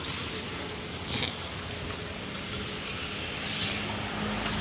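Steady outdoor background noise of wind on the microphone and road traffic, with a low steady hum coming in about halfway through.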